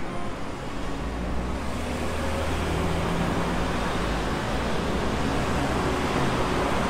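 Road traffic: cars passing close by on a city street, engine and tyre noise. A low engine hum comes in about a second in, and the tyre noise grows louder over the next couple of seconds and then holds steady.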